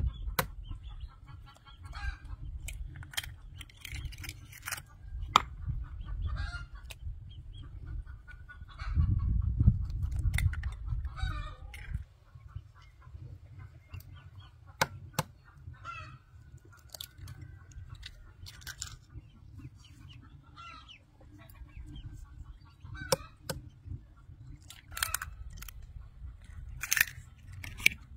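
Chickens clucking and calling in short scattered bursts, with sharp clicks here and there and a steady low rumble that swells about nine to twelve seconds in.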